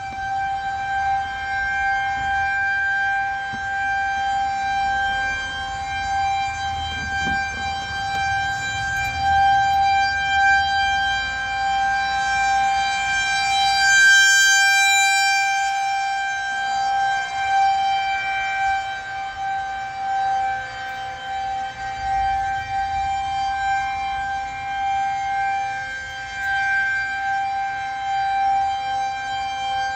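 Federal Signal 2001-130 rotating outdoor warning siren sounding a steady single-pitch wail for a tornado warning. Its loudness swells and fades as the rotating horn sweeps around, loudest about halfway through.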